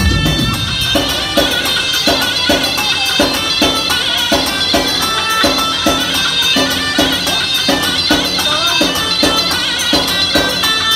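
Amplified traditional dance music: a high, wavering melody over a steady drum beat of about three strokes a second.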